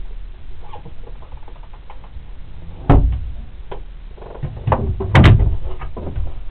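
Wooden locker doors being handled, with a loud knock about three seconds in and a cluster of clunks about five seconds in, over rustling and knocking from a handheld camera.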